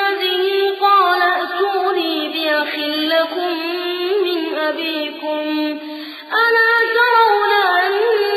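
A boy's high voice reciting the Quran in slow, melodic tajweed, with long ornamented held notes. There is a short break for breath about six seconds in before the next phrase.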